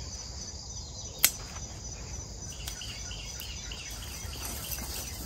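A single sharp snip of hand pruning shears cutting through a luffa stem about a second in, over a steady high-pitched chirring of insects.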